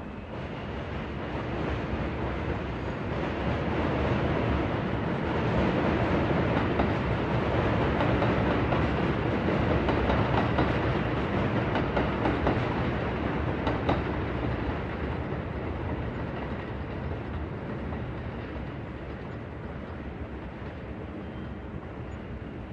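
New York City subway train running through the station: its rumble builds over about five seconds, stays loud for several seconds with a sharp click near the end of that stretch, then slowly fades as the train moves away.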